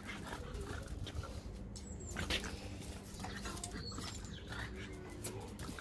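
French bulldog puppy giving short whines and yaps in excited play, the loudest about two seconds in.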